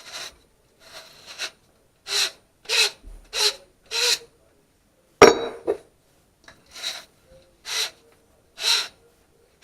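Hand scrubbing or abrading on copper pipe: about seven short rasping strokes, roughly one every two-thirds of a second, with a pause and a single sharp knock about five seconds in.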